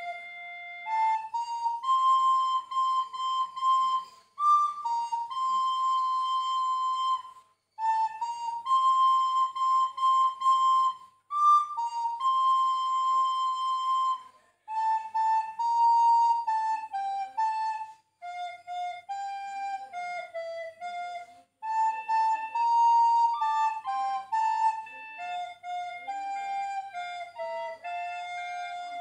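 Solo flute-like wind instrument playing a slow hymn melody, one note at a time, in phrases separated by short pauses.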